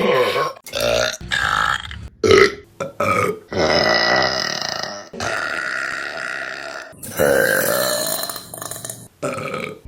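Women burping, one clip after another: a run of short burps, then two long drawn-out burps of about three and two seconds, and a last short burp near the end.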